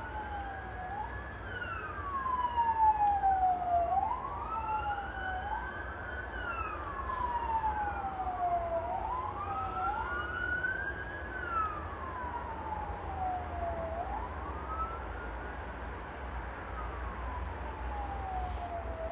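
Emergency-vehicle sirens wailing, two of them overlapping. Each rises quickly in pitch and then falls slowly, over cycles of about four seconds, and they are loudest about three seconds in. A low rumble runs underneath.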